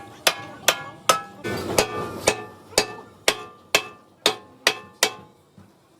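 Hammer striking steel in a steady run of about eleven ringing blows, roughly two a second, that stops about five seconds in.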